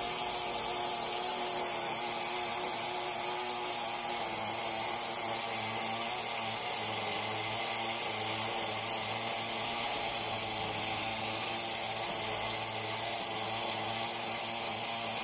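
Small glow-fuel nitro engine of a Kyosho RC truggy idling steadily with a high buzzing drone, during engine tuning.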